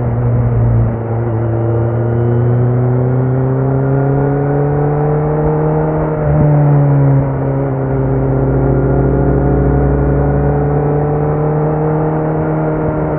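Kawasaki Z900's inline-four engine running through a Leo Vince muffler with the dB killer removed, holding fairly steady revs with the pitch drifting slowly up and down. It swells briefly louder about six seconds in.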